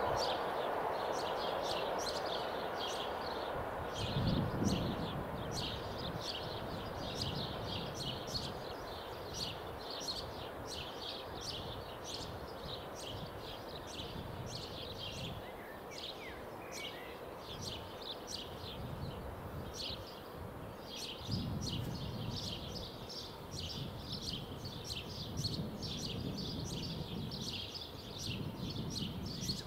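Level-crossing warning bell ringing in a steady, rapid rhythm while the barriers are down, as the noise of a passing train fades out at the start. A bird chirps briefly now and then.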